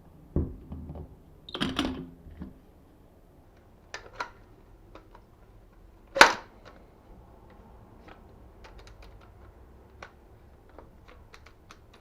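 Handling of an airsoft RGM-40 "Kastet" grenade launcher replica: a series of mechanical clicks, clacks and a short rattle, with one sharp snap a little after six seconds, the loudest of them, then a few light ticks.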